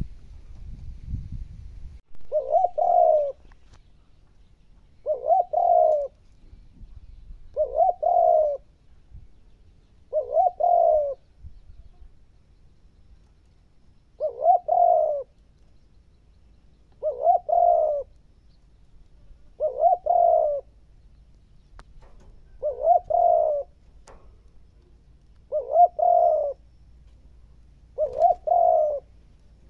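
Spotted dove cooing, a phrase of about a second repeated roughly every two and a half to three seconds, about ten times.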